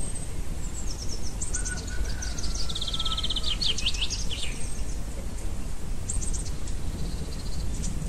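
Songbirds singing in short phrases of rapid high trills and chirps, busiest in the first half and again briefly near the end, with a long thin falling whistle in the middle. A steady low rumble runs beneath.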